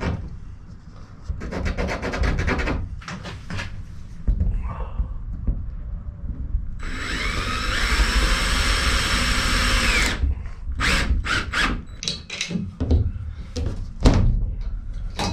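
Power drill running steadily for about three seconds in the middle, fixing a wall clip for the air pipe. Knocks and clicks of handling come before and after.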